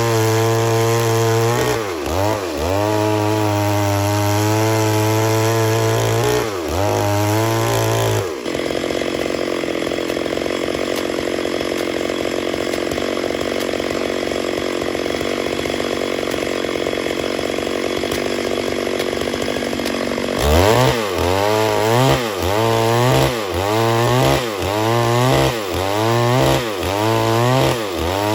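Stihl MS 382 two-stroke chainsaw running at high revs with two brief dips. About 8 seconds in, its note gives way to a steady hissing noise that lasts about twelve seconds. The saw's engine then comes back, revving up and falling back about once a second.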